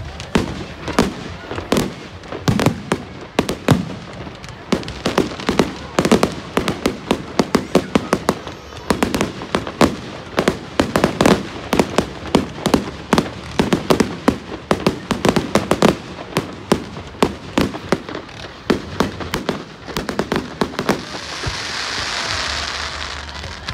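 Aerial fireworks display going off in a rapid barrage of loud bangs, several a second, with a steady hissing crackle near the end.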